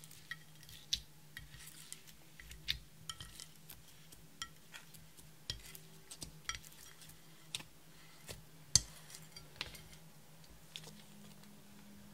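Clear slime loaded with glitter and eyeshadow powder being stretched and folded by hand, giving irregular sharp, sticky clicks and pops, a few a second, with one louder pop about three-quarters of the way through.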